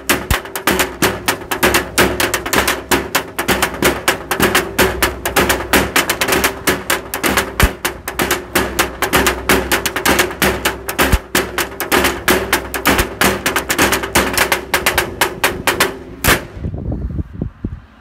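Metal town-entry road signs played as percussion with yarn mallets, drumsticks and a broom: a fast, dense rhythm of strikes over the ringing of the sign plates. It stops with one last loud hit near the end.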